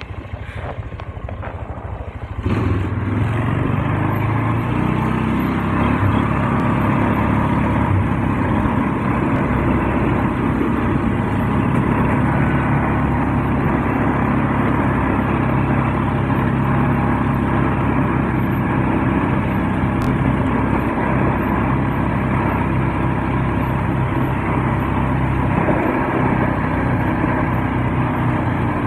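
Polaris ATV engine running, opening up about two and a half seconds in and then pulling steadily as the quad is ridden along.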